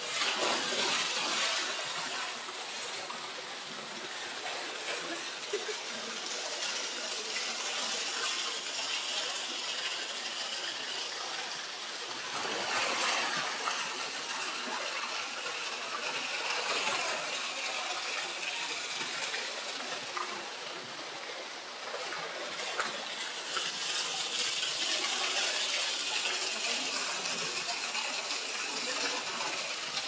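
Polar bear splashing into a pool and swimming, with a loud splash about half a second in and another around the middle, over the steady rush of a waterfall pouring into the pool.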